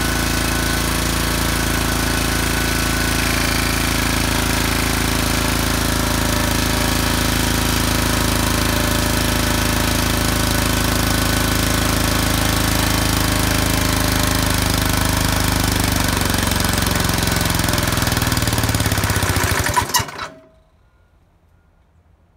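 Honda GC160 single-cylinder horizontal-shaft engine running unloaded with its oil drained, then slowing over the last few seconds and cutting out suddenly about 20 seconds in: the engine dying from oil starvation.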